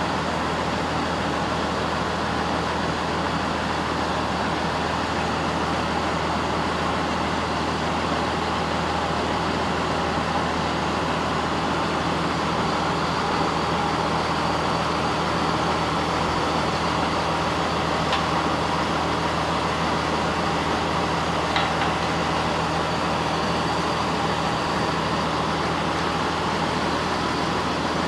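Farm tractor's diesel engine running steadily while its hydraulics fold the wings of a mounted spring-tine harrow. Two faint clicks come in the second half.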